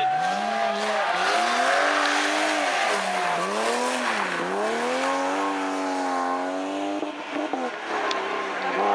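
BMW E30 rally car's engine revving hard, its pitch dipping and climbing again three times in the first half, then held high and fading near the end.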